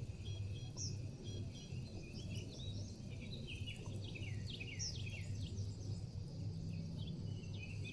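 Birds chirping in short falling notes, a run of them around the middle, over a steady low hum and a faint insect drone.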